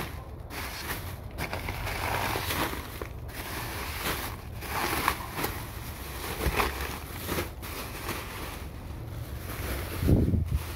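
Thin plastic grocery bags rustling and crinkling irregularly as they are handled, with a louder low thump near the end.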